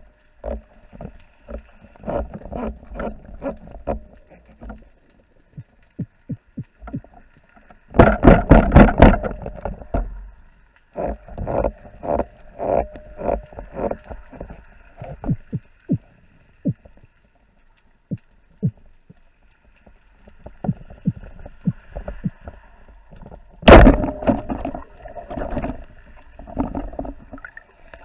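Underwater sound picked up by a spearfisherman's camera: scattered clicks and knocks over a faint steady hum, with a loud rush of noise about eight seconds in. Near the end a sharp, loud hit fits a wooden speargun being fired.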